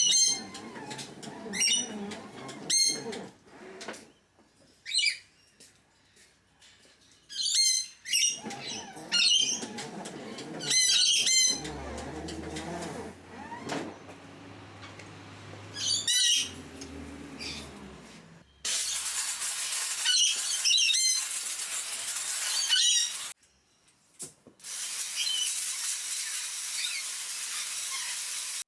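Pet birds squawking and chirping in repeated short calls. From about two-thirds of the way in, a hose spray hisses steadily as they are bathed; it stops briefly and then starts again.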